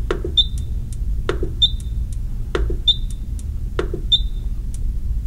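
Rain Master Eagle Plus irrigation controller's Press/Enter knob pressed four times, about once every second and a quarter. Each press gives a click followed by a short high beep from the controller as another day is marked in the program schedule, over a steady low hum.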